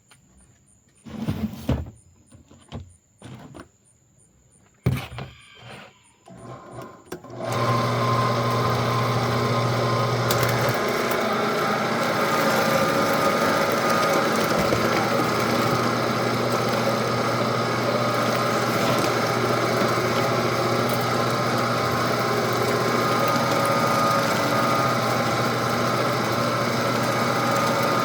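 A few knocks and clunks of handling, then about a quarter of the way in an electric meat grinder's 1.5 horsepower motor starts and runs steadily with a low hum.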